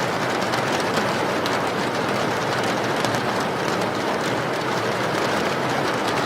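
Steady rain falling: an even hiss with many small drop taps and no change in strength.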